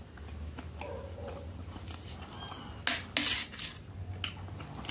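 A metal spoon scraping and clinking against a metal serving tray while scooping food, with two sharp clatters about three seconds in.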